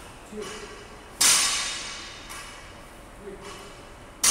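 Barbell loaded with bumper plates dropped from overhead onto the gym floor: a loud crash about a second in and another at the very end, each with a long echoing tail in the large hall.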